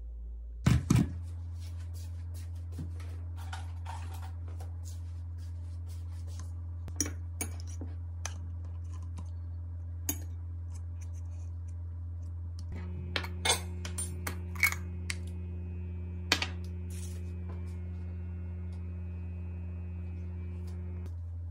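A spoon clinks and taps against a glass measuring cup and other small glass and plastic containers as coconut oil is scooped out for homemade dog toothpaste. The clicks and knocks are scattered, with a few sharp knocks about a second in. Under them runs a steady low hum, and a second, higher hum joins about halfway through.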